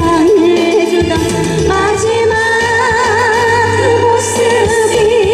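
A woman singing a Korean trot song into a microphone over instrumental accompaniment, holding long notes with a wide vibrato from about two seconds in.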